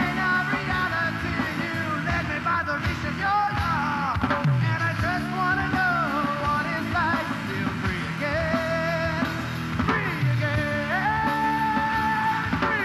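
Rock band playing live: an electric guitar lead with bent, sustained notes over drums and bass.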